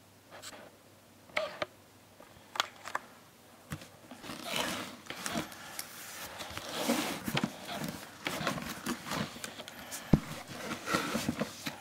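Large cardboard toy box being handled and turned around: scraping and rubbing of cardboard with scattered knocks and clicks, busier from about four seconds in.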